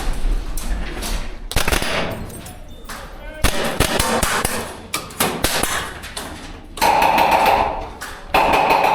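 Airsoft rifles firing, sharp rapid shots in uneven bursts. Two louder sustained stretches, each about a second long, come near the end.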